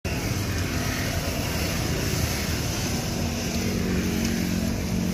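Steady rumble of motorcycle traffic on the road beside a street-food stall, with a low engine hum coming in near the end.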